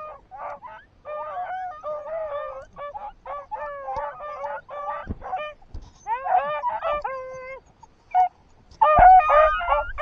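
A pack of beagles baying as they run the rabbit's trail: many overlapping drawn-out bays in bouts, with a brief lull and then a louder burst near the end.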